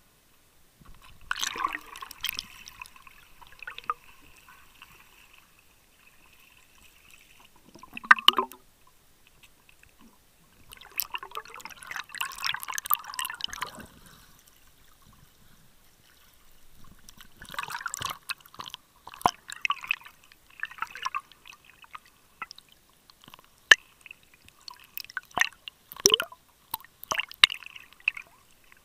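Water sloshing and gurgling around an underwater camera as a snorkeler swims, in bursts a few seconds long with sharp clicks and splashes, the camera breaking the surface partway through.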